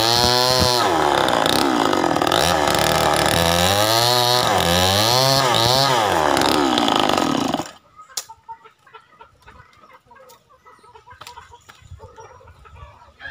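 Stihl 070 two-stroke chainsaw cutting through a mango trunk, its engine pitch repeatedly dropping under load and climbing again as it revs. About two-thirds of the way through, the engine sound stops abruptly, leaving only faint clicks and short bird-like calls.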